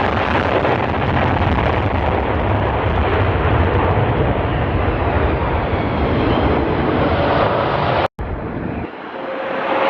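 F-15 fighter jet engines running loud with a deep, rumbling roar, of the kind heard from an afterburner takeoff. The sound cuts out for a moment about eight seconds in. After the cut it comes back without the low rumble, as a higher jet noise with a steady tone that grows louder toward the end.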